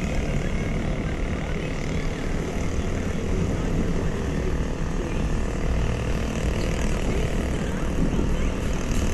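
Steady rumble of a car heard from inside the cabin as it drives slowly: engine and road noise.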